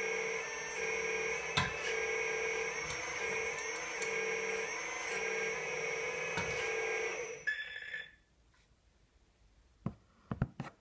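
Radio-controlled CAT excavator model's motor and drive whining steadily as the bucket is worked, the pitch dipping briefly a few times under load. It stops sharply about seven and a half seconds in, followed by a few faint clicks.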